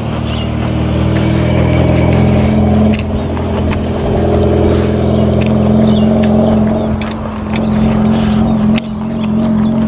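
Boat engine running steadily with a low, even hum as the boat gets ready to move off, swelling over the first couple of seconds and then holding.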